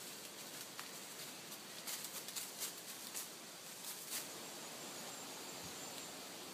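Light rustling and crackling in woodland over a faint steady hiss, with a run of sharp little clicks and crackles about two to four seconds in.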